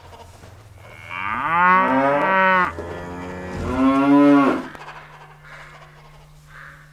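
Two long cow moos, one after the other, each about a second and a half, standing in as the villain's subtitled speech.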